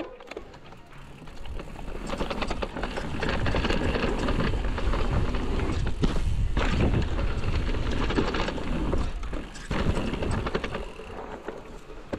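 Mountain bike ridden fast down a dirt forest trail: tyres rolling and the bike rattling over the ground, with a rushing noise. It builds up about two seconds in and eases off near the end.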